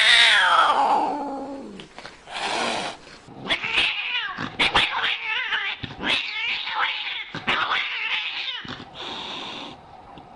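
Cats yowling: a long, loud cry that slides down in pitch at the start, then a run of short, broken cries from about three and a half seconds in until near nine seconds.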